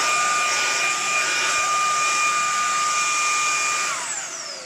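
Shark WandVac cordless handheld vacuum running with a steady high whine and a rush of air, then switched off about four seconds in, its whine falling in pitch as the motor spins down.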